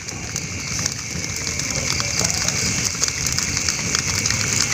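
Wood fire crackling and catfish sizzling on a metal grill grate: a dense, steady run of small crackles and hiss.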